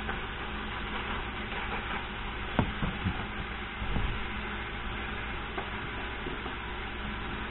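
Steady sizzling hiss of oil frying in a pan on the stove, with a few sharp knocks about two and a half to four seconds in.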